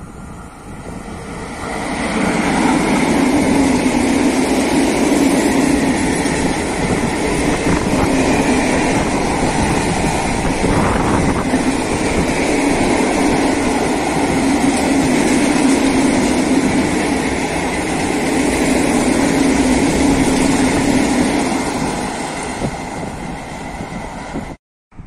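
Freight train of covered silo wagons hauled by an electric locomotive passing close by: a loud, steady rumble of wheels on rail. It builds over the first two seconds, holds, then fades and cuts off abruptly near the end.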